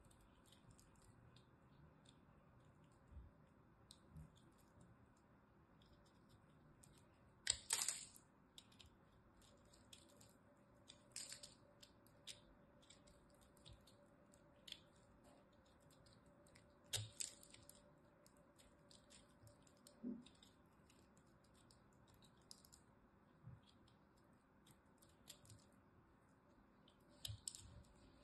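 A small knife blade cutting and prying into a crumbly ball of dried, pressed soap, giving a scatter of soft crackles and scrapes with a few louder crunches.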